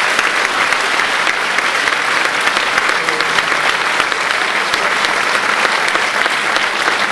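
An audience applauding, many people clapping steadily without a break.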